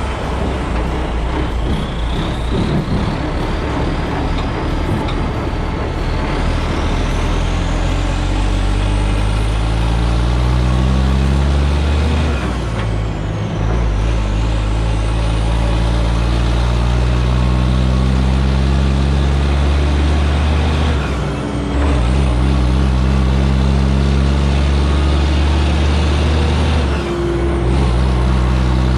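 Diesel engine of a 2001 Western Star float truck pulling a loaded lowboy, working up through the gears: the engine note climbs steadily, dips briefly at a shift about halfway through and twice more in the last third, then climbs again.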